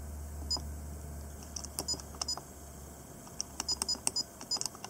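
Fujifilm FinePix A210 digital camera giving short electronic beeps, with light button clicks, as its menu buttons are pressed to step through the menus. Its beep is set to low. The beeps are scattered at first and come faster in the second half.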